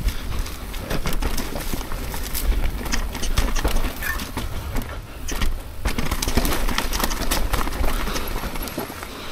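Mountain bike riding fast down a rough dirt trail: wind rumbling on the helmet or body-mounted camera microphone under a rapid clatter of knocks and rattles as the tyres and bike go over rocks and roots. The clatter drops away briefly about five seconds in.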